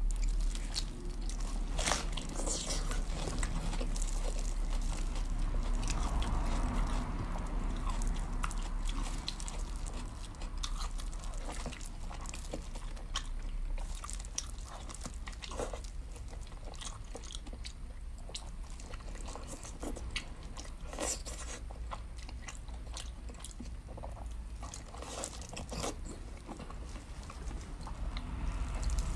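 Person eating close to the microphone: chewing and biting, with many short, irregular crunches and mouth clicks over a steady low hum.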